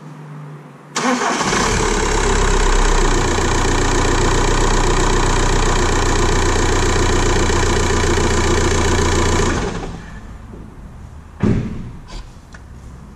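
2006 VW Golf 1.9 TDI (BKC) turbo-diesel engine starting about a second in, right away with its cam timing corrected after a new timing belt, settling into a steady idle and then switched off after about eight seconds. A single sharp thump follows near the end.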